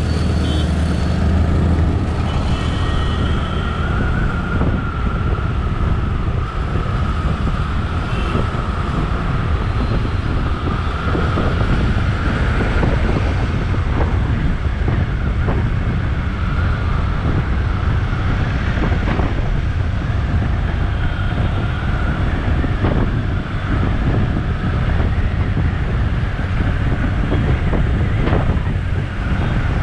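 Steady wind rush on a GoPro's microphone during a motorcycle ride at speed, over the running of the motorcycle and the surrounding traffic, with a wavering whine in the background.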